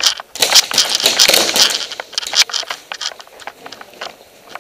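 Airsoft gunfire: a quick flurry of sharp cracks and snaps that thins out after about two seconds into a few scattered clicks.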